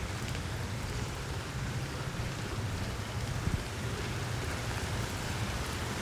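Steady rain falling on leaves, an even hiss with a constant low rumble underneath.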